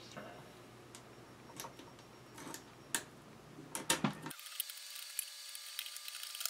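Small clicks and taps of a screwdriver and metal screws being handled and turned while a carbon fiber monitor mount is fastened to a transmitter. About four seconds in, the sound thins out and turns to a dense run of rapid fine ticking.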